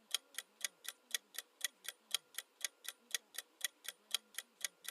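Quiz countdown-timer sound effect ticking evenly, about four ticks a second.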